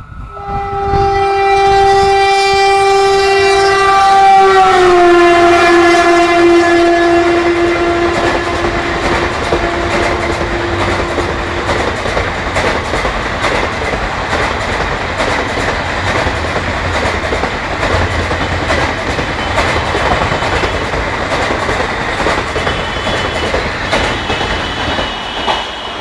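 A WCAM-1 electric locomotive's horn sounds one long blast as an express train races through, its chord dropping in pitch about five seconds in as the locomotive passes, and dying away by about twelve seconds. After that the coaches rush by with a loud, fast clatter of wheels on the track.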